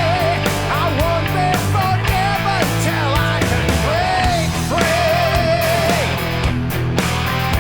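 Heavy metal record playing from vinyl in an instrumental passage: a lead guitar melody that bends between notes and holds a long vibrato note in the second half, over bass and drums.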